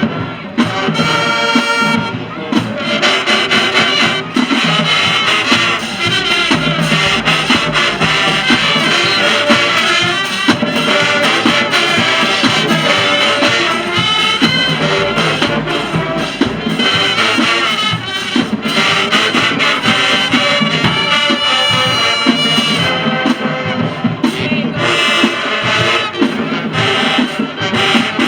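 High school marching band playing loudly, brass over drums, without a break.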